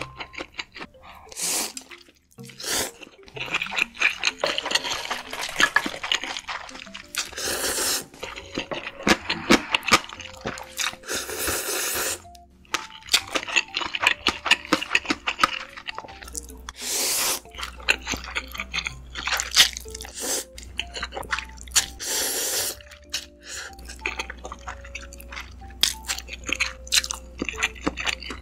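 Close-miked eating sounds: a person chewing and slurping spicy fire noodles, with wet clicks, crunches and half-second slurps. Soft background music plays underneath.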